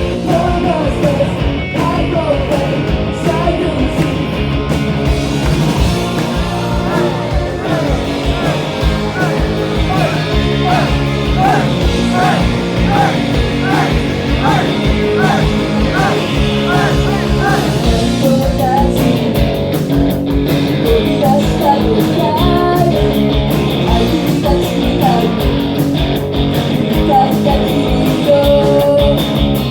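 Live rock band playing a song: electric guitar, bass and a steady drum beat under a sung lead vocal.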